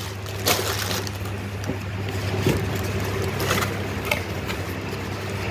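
Cardboard product box and its paper packaging being handled, with a few brief rustles and knocks over a steady low background hum.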